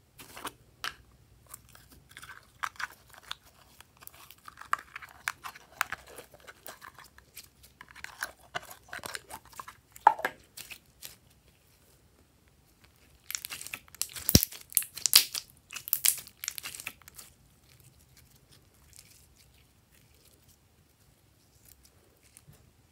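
Hands squishing and kneading sticky glitter slime: wet crackles and sharp pops in bursts, the densest and loudest run about halfway through, then only a few faint ones.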